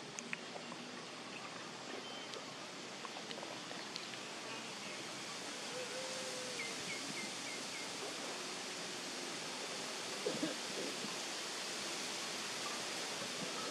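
Steady outdoor hiss of open-air ambience around a water buffalo feeding with its head under water. A faint bird gives a quick run of about five short high chirps about seven seconds in, and there is a brief louder sound near ten seconds.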